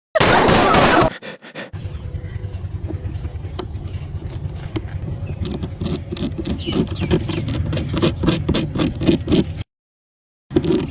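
Needle scraping and tapping on dalgona honeycomb candy: many quick short scratches over a steady low rumble, coming faster about halfway through and breaking off briefly near the end. It opens with about a second of loud rushing noise.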